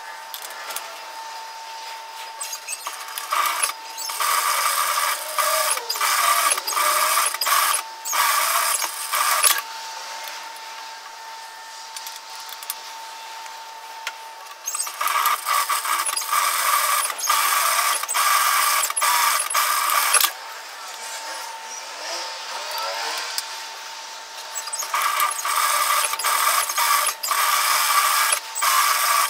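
Industrial lockstitch sewing machine stitching rows of shirring, running in three bursts of several seconds each with short stops and starts between, over a faint steady hum.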